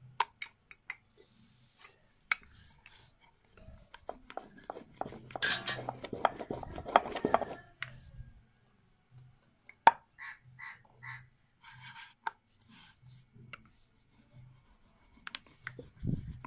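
Wooden rolling pin rolling puri dough on a round wooden board: scattered knocks and clicks of the pin against the board, with a few seconds of dense rolling and rubbing noise a few seconds in and a sharp knock near the middle.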